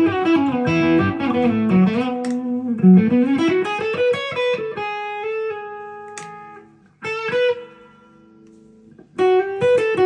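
Epiphone Les Paul Custom electric guitar playing a quick single-note melodic run that falls in pitch and climbs back. A few notes are then left ringing. After a short break about seven seconds in, a chord is struck and rings out, and another quick run starts near the end.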